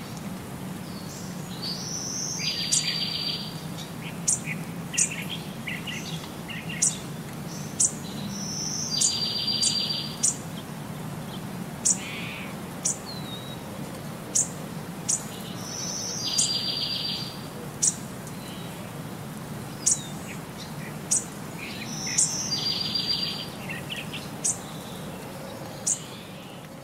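Birds chirping in short, sharp, high notes about once a second, with a buzzing trill every six or seven seconds. The same pattern repeats throughout over a steady low hum, like a looped bird-song track.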